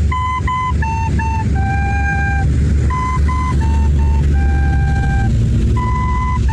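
A simple beginner's flute tune: three notes stepping down, the top two played twice each in short pairs and the lowest held long. The phrase is repeated, over a steady low rumble.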